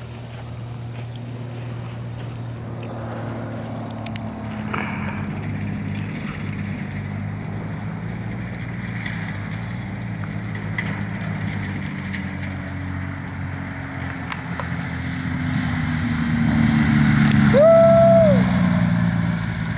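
1963 Cessna 182 with a 280 hp engine on approach at low power, its engine and propeller drone growing steadily louder as it comes in over the trees and passes close by on landing, the pitch dropping as it goes past. A brief high tone sounds near the end.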